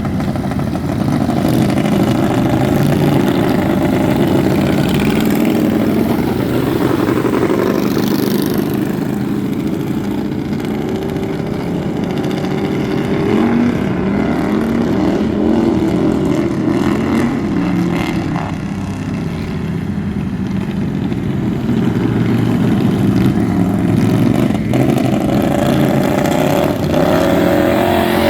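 Racing lawn mower engines running loud and steady, their pitch rising and falling as they rev up and back off.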